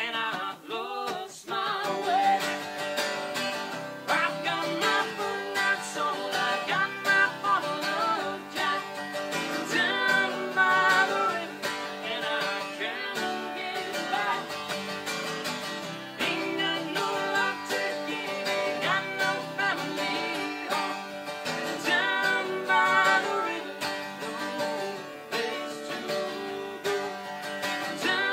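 Live acoustic song: a steel-string acoustic guitar strummed, with a woman and a man singing together over it.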